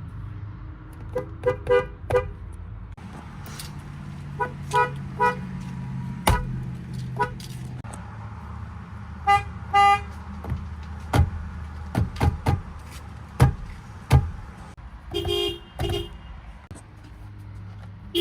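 Toyota car horns giving short beeps, usually two or three in quick succession, repeated several times over a steady low engine and traffic rumble. A few sharp clicks come in between.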